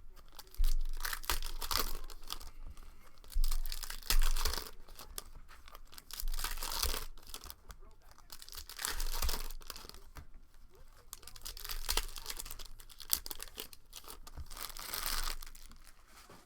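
Plastic wrapping on basketball card packs or their hobby box being torn open and crinkled in repeated bursts of a second or two, with a few sharp handling thumps about half a second in and around three to four seconds in.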